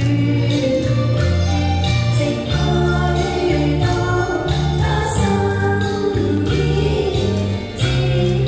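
A woman singing a nostalgic Chinese pop song into a microphone over backing music with a strong bass line, amplified through a hall's sound system.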